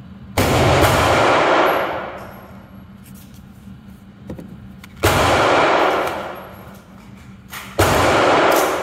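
Three gunshots in an indoor shooting range: about half a second in, about five seconds in and near the end. Each rings on in the range's echo for a second or two before dying away.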